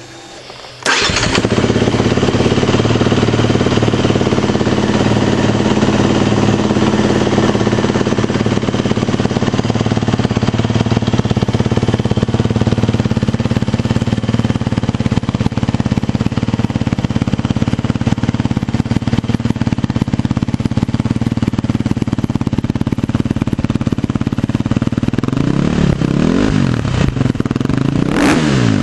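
2013 KTM 350 EXC-F's single-cylinder four-stroke engine, breathing through an FMF slip-on silencer with spark arrestor insert, starts about a second in and idles steadily, already warmed up. Near the end the throttle is blipped a couple of times, the revs rising and falling. It has a nice healthy bark, not too loud.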